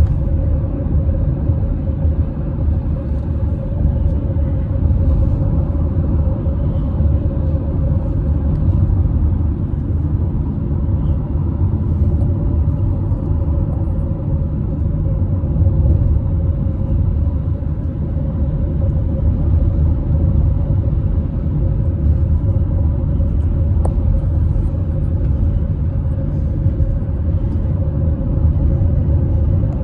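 Steady low rumble with a constant hum running under it, the road and engine noise of a moving car.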